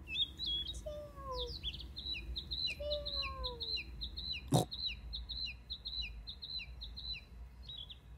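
Small birds chirping in quick, continuous high runs, with two lower falling calls about one and three seconds in. A single sharp click about halfway through is the loudest sound.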